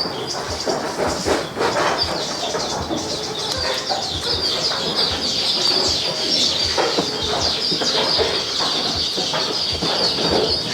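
A steady chorus of many birds chirping and chattering, with scattered short knocks and rustles.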